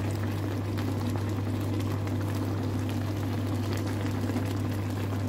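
Pot of sinigang soup boiling steadily, a fine bubbling crackle over a constant low hum.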